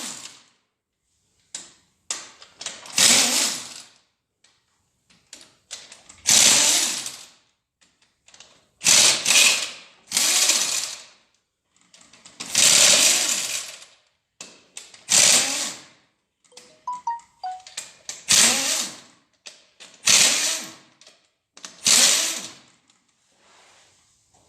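Ratchet wrench with a 12 mm socket clicking in about ten separate bursts of ratcheting as bolts are backed out of a Hyundai/Kia G4NA engine.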